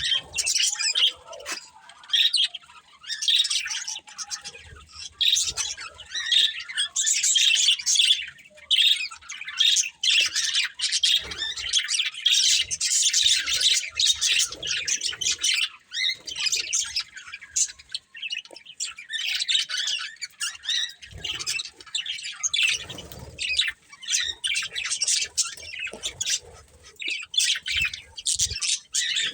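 Budgerigars chattering and warbling, a busy run of rapid chirps with sharper squawks mixed in.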